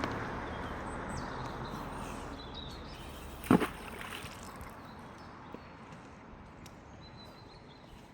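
Pond water sloshing and settling, fading over the first few seconds. About three and a half seconds in there is a single short, sharp splash-like impact.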